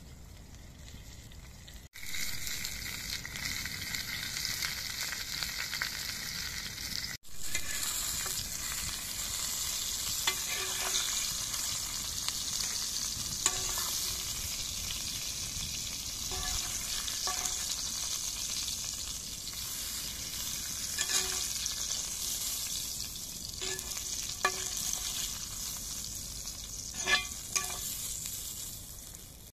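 Bell pepper and tomato slices sizzling steadily in a black grill pan over a wood fire. The metal skimmer clinks and scrapes against the pan now and then as the pieces are turned. The sizzle starts about two seconds in, after a quieter stretch.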